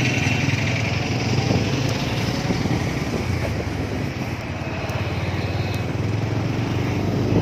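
Engine of a small road vehicle running steadily on the move, with road and wind noise.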